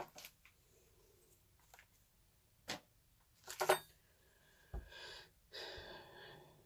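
A few sharp clicks and a dull knock of objects being handled, followed by a soft breathy noise.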